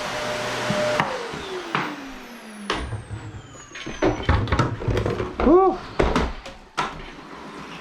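Vacuum cleaner switched off about a second in, its motor whine falling in pitch as it winds down. Then a run of clicks, knocks and clatter from the machine being handled.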